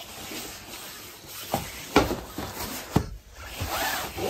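Rustling and handling of a play yard's folding fabric-covered mattress pad being lifted and unfolded, with a few sharp knocks as its stiff panels flop against each other and the frame.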